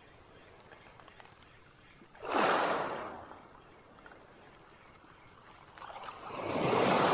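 Small waves washing up a pebble beach: a short surge about two seconds in, and a slower one building near the end.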